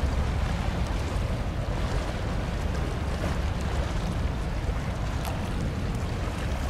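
Wind blowing over the microphone and choppy sea water, a steady rushing noise with a low rumble.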